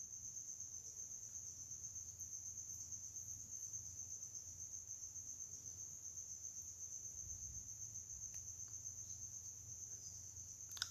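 Faint steady background noise: a high-pitched, insect-like trill over a low hum.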